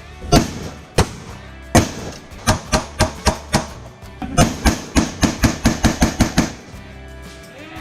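Background music with a series of sharp, loud hits, including a quick even run of about four a second in the middle.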